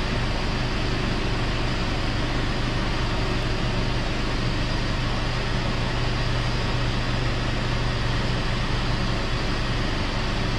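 Car idling with its air conditioning running, the blower fan pushing a steady rush of air over a steady low hum. The refrigerant system is running for a cooling test at the vents.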